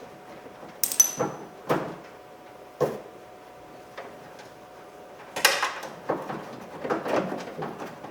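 Metal knocks and clinks from tools and loosened parts inside a car door, with one sharp ringing metal clink about a second in and a busier run of clunks in the second half.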